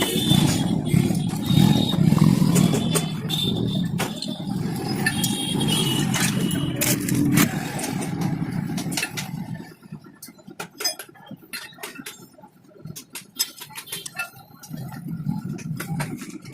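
A motorcycle engine running loud and steady. After about ten seconds it drops away, leaving quieter scattered clicks and knocks until the low sound builds again near the end.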